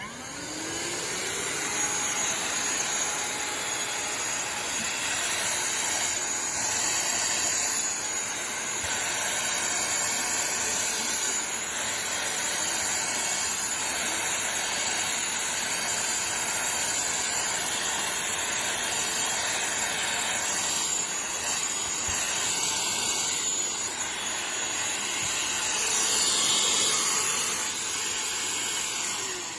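Shark CH701 Cyclone Pet cordless handheld vacuum spinning up, running steadily with a loud rushing hiss of air, then winding down at the end.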